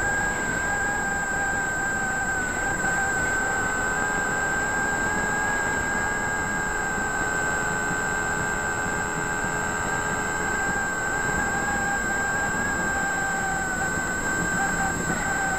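Multiplex FunCub's electric motor and propeller giving a steady high whine with slight wavers in pitch, picked up by a camera mounted on the plane, over a rush of wind noise.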